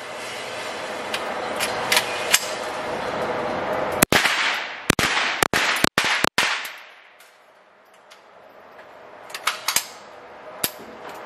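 Gunshots at an indoor shooting range: a fast string of about five loud rifle shots a little past the middle, with a few fainter shots early on and near the end, and the recording briefly cutting out on the loudest ones.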